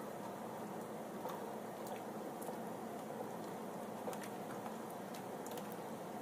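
Faint squishing of a spoon stirring thick chili in an aluminium stockpot, with a few soft clicks scattered through it.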